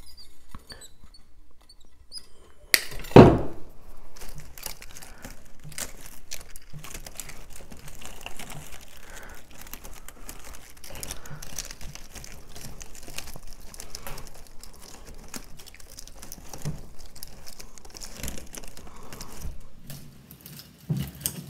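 Hands working artificial pine greenery and floral wire into a grapevine wreath: irregular crinkling and rustling with small clicks. A sharp click about three seconds in is followed at once by a thump, the loudest sound.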